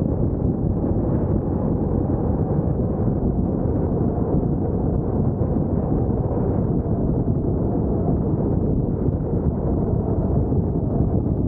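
Steady low rumbling noise, even and unbroken, with no distinct events.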